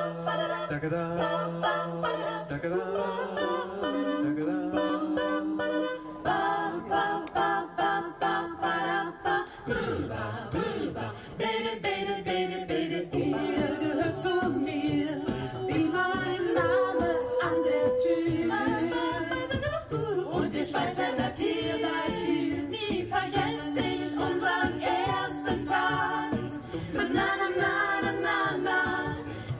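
Mixed a cappella vocal group of men and women singing a song in close harmony, several voices holding chords together with no instruments.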